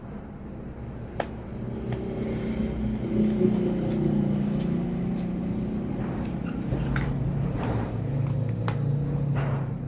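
A motor vehicle engine running outside, its low hum growing louder about two seconds in and wavering in pitch, with a few light clicks from the screws on the laptop case.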